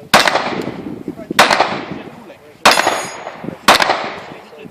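Four pistol shots fired about a second apart, each sharp report followed by a long echoing decay.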